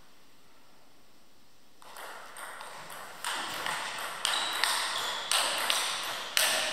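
Table tennis serve and rally: the ball clicking off the rackets and bouncing on the table, at first soft taps, then hard hits about once a second after a short quiet start.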